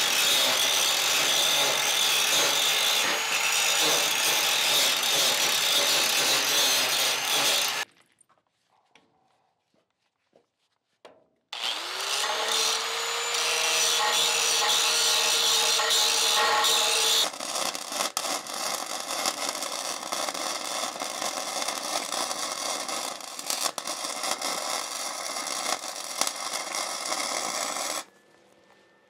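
An angle grinder grinds steel for about eight seconds and stops. It then spins up with a rising whine and grinds again for about six seconds. After that, a wire-feed welder's arc crackles steadily as the frame rail is welded, cutting off about a second before the end.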